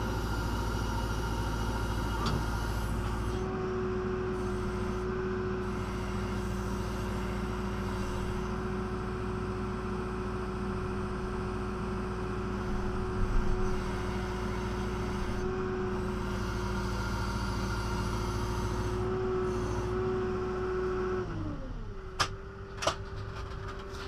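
John Deere 310SG backhoe's diesel engine running steadily at raised speed with a constant whine, heard from inside the cab, then throttled back to idle about 21 seconds in. A few sharp clicks follow near the end.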